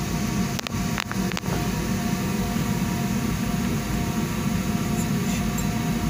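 A steady low hum with faint whining tones runs throughout, with a few short clicks about a second in, while a washing machine's gearbox pulley is spun by hand and turns freely.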